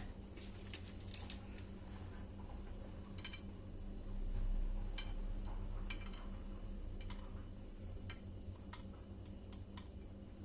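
Scattered light clicks and taps, irregular and spread over several seconds, as flaked almonds are sprinkled onto a honey-glazed cake.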